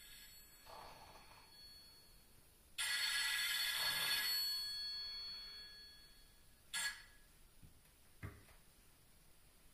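A bell rings: a loud ring with several steady high tones starts about three seconds in and fades away over a few seconds. A short click follows about a second later, then a faint thump.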